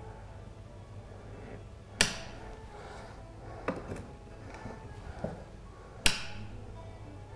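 Rocker switch on a switched mains socket clicking off, then clicking on again about four seconds later. In between, a few light clicks of a glass bulb being screwed into a ceramic lampholder that serves as a series current limiter. A low mains hum sits under it, weaker while the switch is off.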